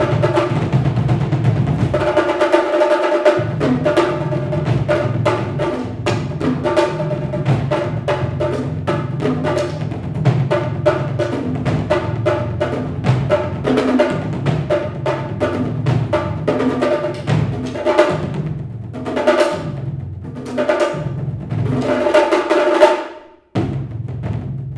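Percussion trio playing fast, driving strokes with sticks on a shared bass drum laid flat and surrounding drums. A loud accented stroke comes shortly before the end, then the playing cuts off abruptly and resumes more softly.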